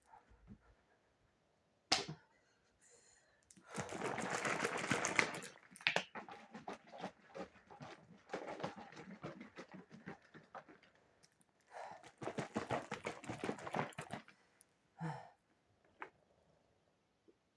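A person's heavy breathing: three long, noisy breaths with short knocks and clicks between them.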